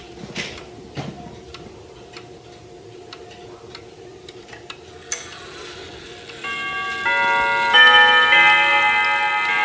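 Wuba triple-weight wall clock ticking steadily, with a sharp click about five seconds in as its minute hand is moved by hand. About a second later the chime rods start striking a sequence of ringing notes that sustain and overlap, louder than the ticking.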